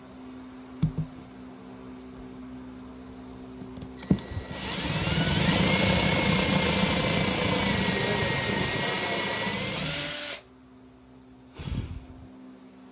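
Power drill driving a threaded insert into wood: a couple of knocks and a click, then about six seconds of steady motor whine that rises in pitch as it spins up and cuts off suddenly, followed by one more knock.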